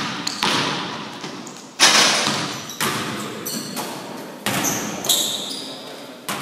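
Basketball bouncing on a gym floor, about six separate bounces, each echoing through the hall, with sneakers squeaking in between.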